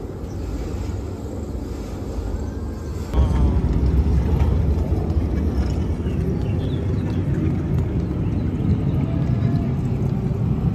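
Steady low rumbling background noise, which steps up in level about three seconds in and then holds.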